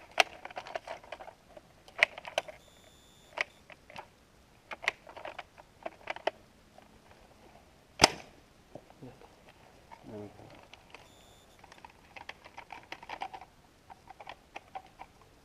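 Scattered small mechanical clicks and rattles of hands working on jammed airsoft gear, with one sharp click about eight seconds in. Two brief high-pitched tones sound, about three seconds in and again near eleven seconds.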